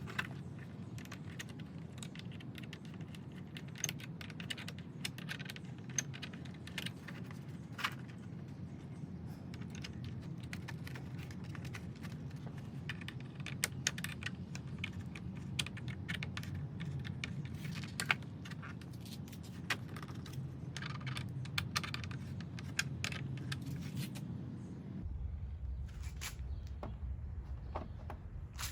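Irregular light clicks and small rattles, like small hard parts being handled, over a steady low hum whose pitch drops near the end.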